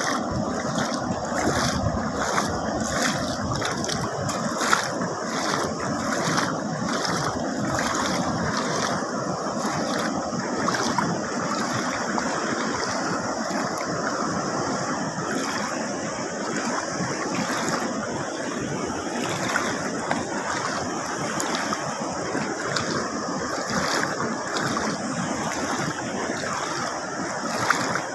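Sea water washing and splashing among shoreline rocks, a steady rush of surf.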